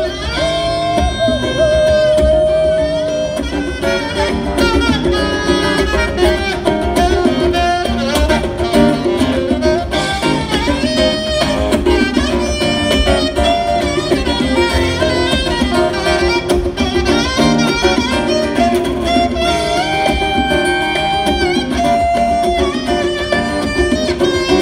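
Live band music: a saxophone plays the lead melody with held and sliding notes over strummed guitar and congas, in a steady 4/4 groove.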